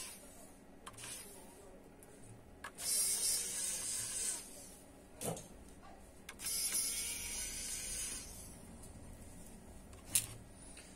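Two hissing bursts, each about a second and a half long, with a few sharp clicks in between and one more click near the end.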